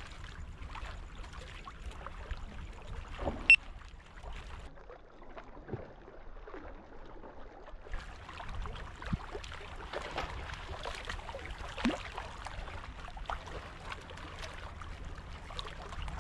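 Wind rumbling on the microphone and small waves splashing against shoreline rocks, with one sharp click about three and a half seconds in.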